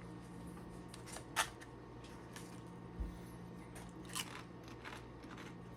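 A person eating: a few short, crisp crunches, loudest about a second and a half in and about four seconds in, with a soft low thump near the middle, over a steady low hum.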